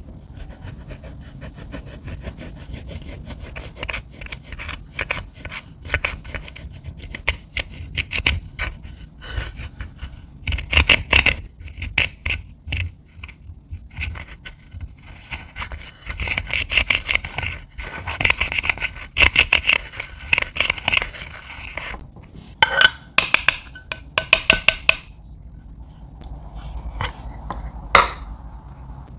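Metal-tipped pick scraping into and crumbling a pressed-powder highlighter in its compact: dense gritty scratching and crackling clicks, heaviest in the second half, with a run of sharp taps near the end.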